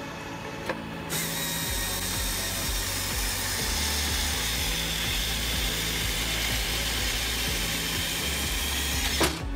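A powered machine running loudly, starting about a second in and stopping with a sharp click near the end.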